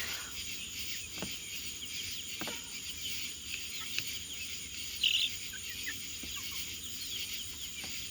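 A steady, high-pitched chorus of insects. A few faint clicks and one brief louder chirp about five seconds in.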